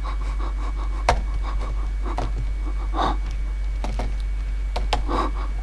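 A few breathy pants or huffs from a voice, spaced a second or so apart. Sharp clicks from a laptop keyboard come about a second in and twice near the end. A steady low electrical hum runs underneath.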